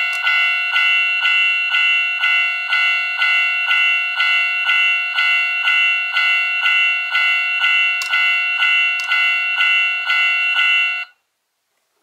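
Japanese railway level-crossing warning bell ringing its repeated 'kan-kan' ding, about two and a half strikes a second, then cutting off suddenly near the end.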